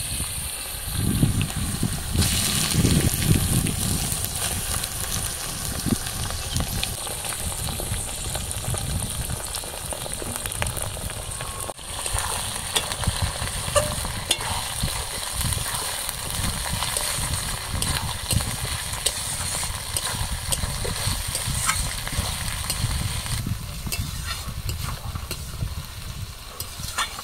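Pieces of goat liver sizzling as they fry in hot mustard oil with browned onions in a metal kadai, a metal spatula scraping and stirring them against the pan. A low rumble runs underneath and is loudest in the first few seconds.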